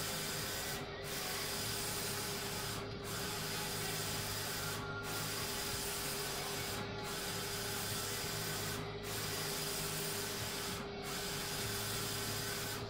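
Roland wide-format printer printing vinyl decals, its print-head carriage shuttling back and forth across the media: a steady mechanical whir and hiss over a low hum, dipping briefly about every two seconds.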